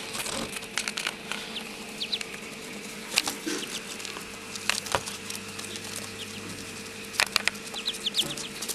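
Ducklings scuffling and pattering about, with scattered sharp taps and a few short, high peeps.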